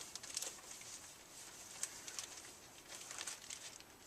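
Faint rustling and a few light ticks from comic books being handled and sorted.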